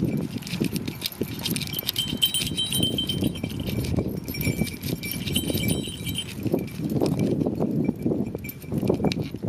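Small bells on the goats' collars ringing as they walk, clearest from about two to six seconds in, over the scuffing of hooves and footsteps on a dirt road.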